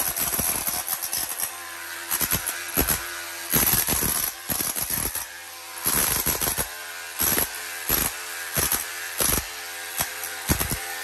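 Ryobi cordless brushless rotary hammer in chisel mode, chipping tile and mortar remnants off a concrete floor. The motor runs steadily, with repeated short stretches of loud hammering chatter as the chisel is pressed in and bites.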